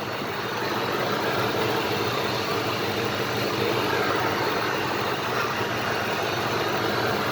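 Ford F-150's V8 Triton engine idling steadily.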